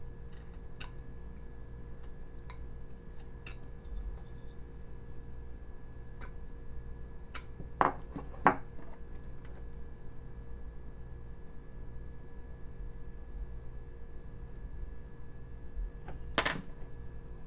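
A few light clicks of a carving knife working basswood, then two sharp knocks about eight seconds in as the small knife is laid down on the wooden table. Near the end comes a brief scrape from the pencil being handled or marking the wood. A faint steady hum lies underneath.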